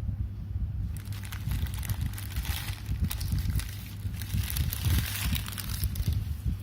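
Packaging being handled for an unboxing: irregular crinkling, rustling and small clicks that start about a second in, over a steady low hum.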